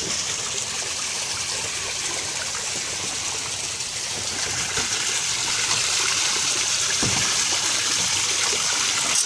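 Steady rush of running water, an even hiss-like trickle that keeps on without a break.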